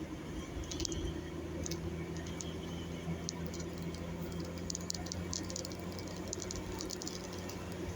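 Bus engine running steadily at a low hum, with scattered light clicks over it. No telolet horn sounds.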